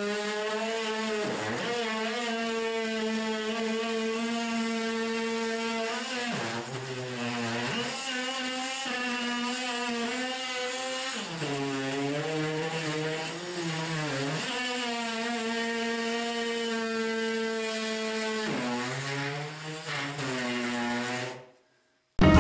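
Ryobi ONE+ 18-volt cordless oscillating multi-tool running with a steady buzzing whine while trimming drywall. Its pitch drops and recovers several times as the blade bears into the board. The sound cuts off suddenly near the end.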